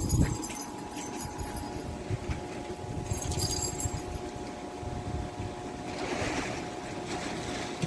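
Gusty wind buffeting the microphone ahead of a thunderstorm: a low, uneven rumble with a faint steady hum underneath.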